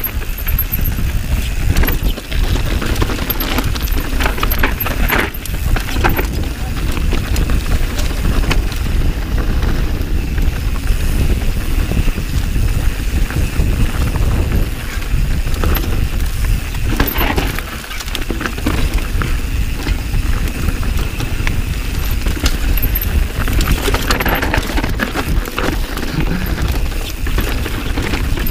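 Mountain bike ridden fast down a rough trail, heard through an action camera's microphone: a steady rumble of wind and tyres over dirt, with frequent knocks and rattles from the chain and frame over bumps.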